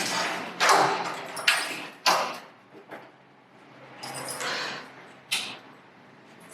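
A workshop door being pushed open: a series of about five short scraping, rattling noises, some of them sharp.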